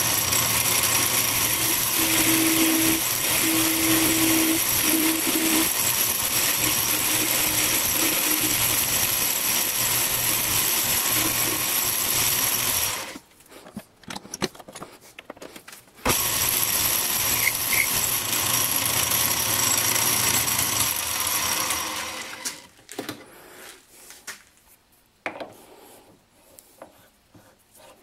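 Metal lathe running while cutting back the end of a threaded workpiece. It stops abruptly about halfway through, starts again a few seconds later, then runs down about three quarters of the way in, followed by a few light clicks of handling.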